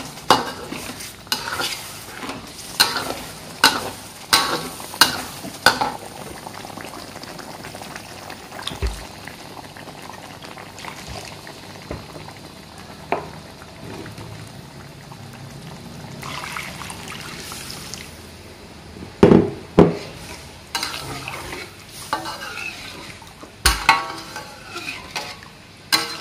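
A spoon stirring a pot of broth cooking with fried spice paste over a steady sizzling hiss, clinking against the pot about eight times in the first six seconds and a few more times later, loudest about two-thirds of the way through.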